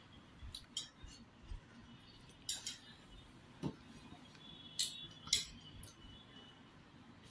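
Scattered light clicks and clinks of eating rice by hand from a ceramic plate: fingers and a bangle tapping the plate while mixing food, a few ringing briefly about five seconds in.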